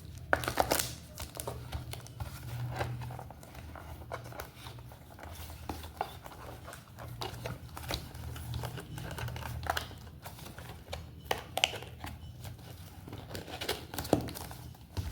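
Phone packaging being handled: plastic wrap and cardboard crinkling, with scattered clicks and rustles, over a steady low hum.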